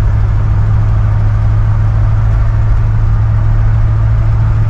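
A 1971 Ford F100 pickup's 460 big-block V8 running with a steady low drone while cruising, heard from inside the cab.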